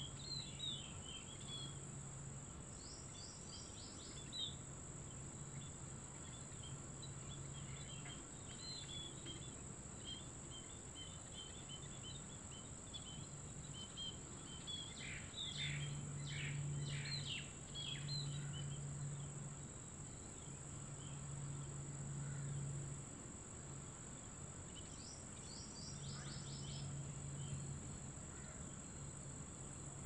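Birds chirping in a tree: scattered short high calls with a few quick runs of notes, over a steady high-pitched insect drone and a low hum that comes and goes.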